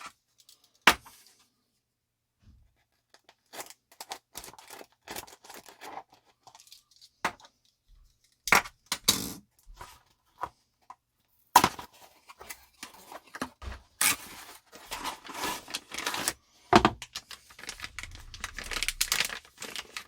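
Tape being torn off a small cardboard box and the box handled open: irregular bursts of tearing and crinkling with sharp clicks.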